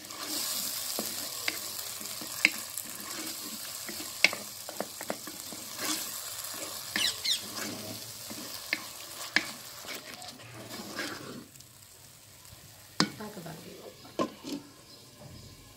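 Crushed tomato and onions sizzling in hot oil in a clay pot, stirred with a wooden spatula that scrapes and knocks against the pot. About two thirds of the way through, the sizzling drops away and a few knocks follow as a glass lid is set on the pot.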